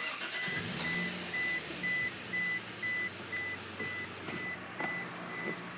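A high electronic beep repeating steadily, about two beeps a second, over a faint low hum.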